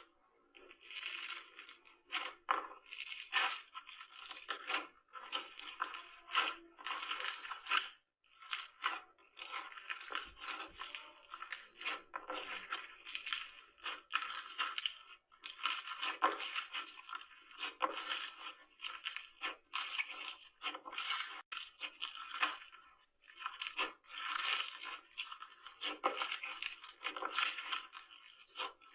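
Slime being squeezed and pressed by hand, giving crackling, crunchy squishes in irregular bursts with short pauses.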